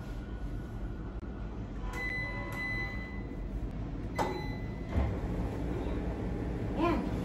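Laundry being handled at a front-loading washing machine: a single electronic beep of about a second from the machine about two seconds in, then a sharp click about four seconds in and a few softer knocks, over a low steady hum.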